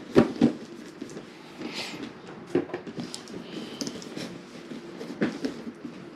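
A cardboard figure box being handled and turned over in the hands: a few knocks and taps, loudest near the start, with a brief scrape of the box about two seconds in.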